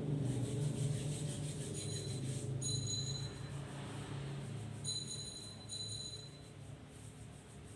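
Hands being rubbed together with hand sanitizer before a procedure, a soft steady rubbing, with several short high squeaks.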